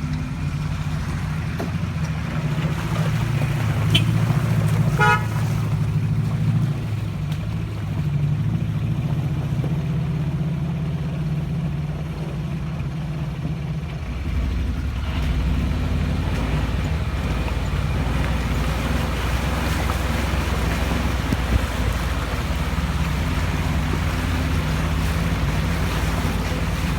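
Off-road vehicle engine running steadily, with a short horn toot about five seconds in. About halfway through the engine note drops lower and rougher.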